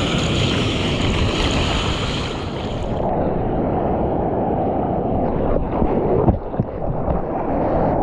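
Ocean surf and rushing water with wind buffeting an action camera's microphone, a dense steady rush of noise. About three seconds in the sound turns duller, and a few short splashes and knocks come around six seconds in.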